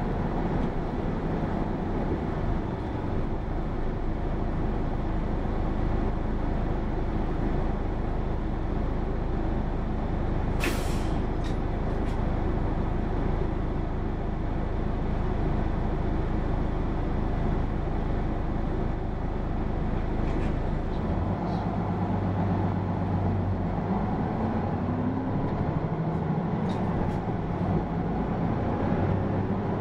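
Hino PA-KR234J1 city bus running on the road, heard from inside the passenger cabin: steady engine and road noise, with a brief sharp hiss about ten seconds in. The engine note changes about 21 seconds in and rises a few seconds later.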